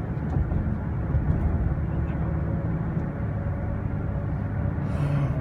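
Steady road and engine noise heard inside the cabin of a moving car.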